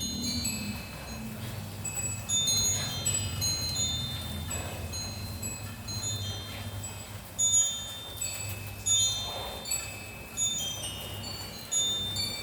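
Metal wind chimes ringing irregularly in a light breeze: clear high tones struck at random moments, overlapping and ringing on, with a few louder strikes near the end. A steady low rumble runs underneath.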